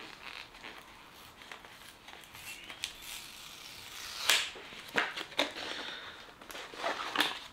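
Packaging rustling and crinkling as a small pouch with a phone lanyard cord is unwrapped by hand, with a few sharper crackles about four, five and seven seconds in.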